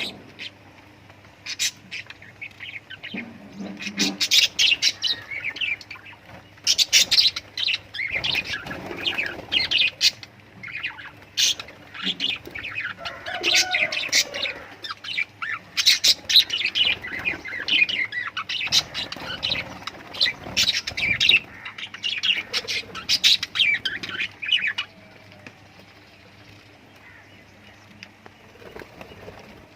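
Pet lovebirds chirping and squawking in quick runs of shrill, high calls, falling much quieter about 25 seconds in.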